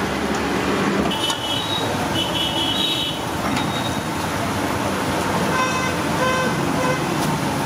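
Steady street traffic noise with vehicle horns tooting several times: once about a second in, again around two to three seconds, and a run of beeps near six seconds.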